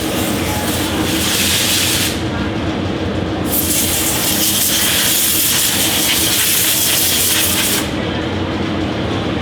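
Machinery running with a steady hum, broken by two long bursts of hissing, the second lasting about four seconds.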